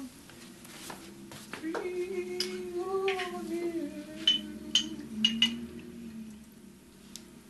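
A person humming a wavering tune without words. Partway through come four sharp glass clinks in quick succession as glasses and a bottle are handled.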